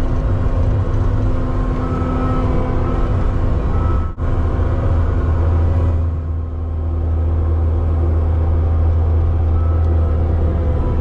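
A heavy vehicle's engine running steadily with a deep, loud hum, heard from inside the cab. The sound cuts out sharply for an instant about four seconds in.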